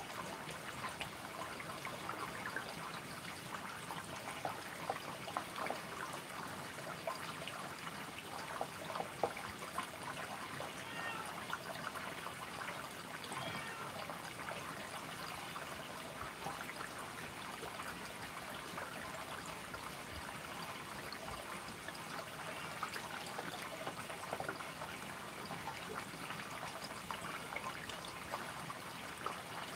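A cat eating at a bowl: many small wet clicks, thickest in the first third, over a steady background hiss.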